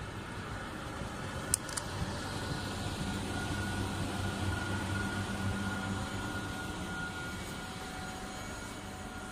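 Electric locomotive running light and passing close by: a steady low drone with a faint high whine that grows louder to a peak near the middle and then fades. There is a single sharp click about a second and a half in.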